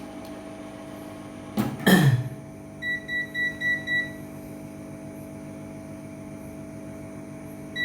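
Hot air rework station (Quick 850) running with a steady hum. About two seconds in there is a brief loud whoosh that falls in pitch. It is followed by five short electronic beeps at one pitch, about four a second, and a single beep near the end.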